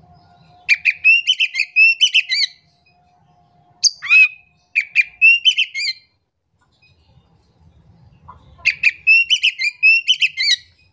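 Oriental magpie-robin singing in three loud phrases of rapid, varied notes, with short pauses between them.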